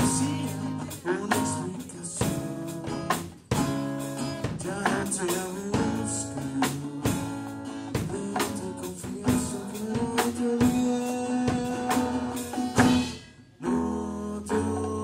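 Live band playing a song: a man singing over guitar, drum kit and congas, with a short break in the music about thirteen seconds in.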